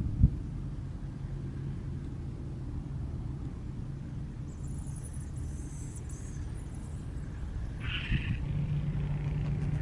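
Low, steady rumble of a motor vehicle's engine running, with a steady hum throughout and a brief higher-pitched sound about eight seconds in.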